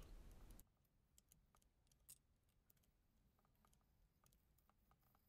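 Near silence, broken by faint, scattered small clicks from tactile push-buttons and a rotary encoder knob being worked; the loudest click comes about two seconds in.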